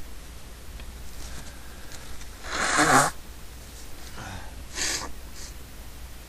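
A person's sneeze, a breathy burst that builds and then breaks off about two and a half seconds in, followed a couple of seconds later by a short sniff.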